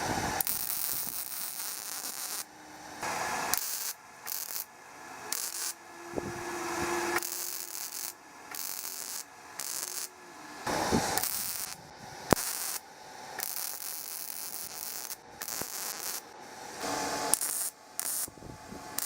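Handling noises: rubbing and hissy scraping in short stretches that start and stop abruptly, with a few sharp clicks, the clearest about twelve seconds in.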